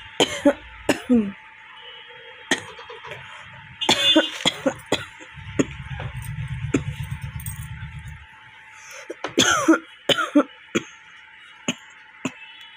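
A woman coughing in three short fits, a dry cough without phlegm that she puts down to stomach acidity. A low buzz runs for a couple of seconds in the middle.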